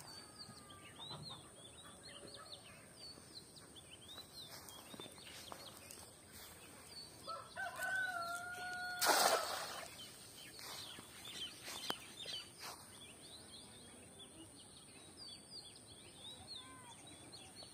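A rooster crows once, a held call of about a second and a half, and right after it a cast net lands on the pond with a short splash, the loudest sound. Small birds chirp throughout.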